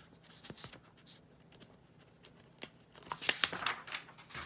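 Printed paper sheets being moved and turned over: a few faint ticks, then a burst of rustling and crinkling about three seconds in.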